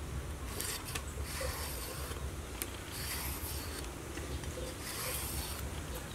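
Knife blade scraping the ridged skin off a luffa gourd in repeated strokes, over a low steady rumble in the background.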